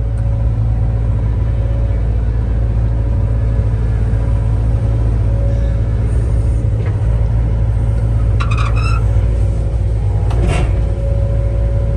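John Deere 85G compact excavator's diesel engine running steadily under hydraulic load as the machine's controls are worked, a loud low drone with a faint higher hydraulic whine. A short squeak comes about eight and a half seconds in and a brief knock about two seconds later.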